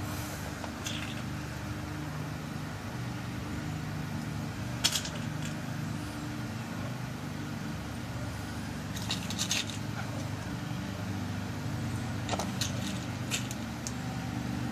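Small, sharp clicks of brass pins being dropped and seated into the chambers of a lock cylinder during rekeying: scattered single ticks, a few in quick succession around the middle and several more near the end. Under them runs a steady low hum.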